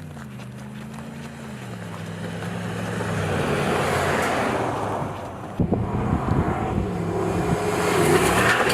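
Ram 1500 Rebel pickup truck driving off-road: the engine runs steadily under a swelling rush of tyre and terrain noise. About halfway through, the sound changes abruptly, with a few knocks, and the engine and tyre noise carry on.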